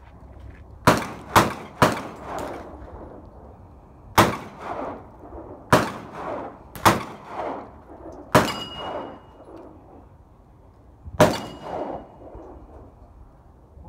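Shotgun shots at clay targets, about eight sharp reports, three of them in quick succession in the first two seconds and the rest spaced a second or more apart. Each one echoes off the surrounding hillside.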